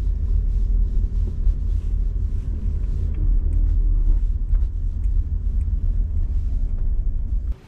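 Car cabin noise while driving: a steady low road and engine rumble that stops abruptly near the end.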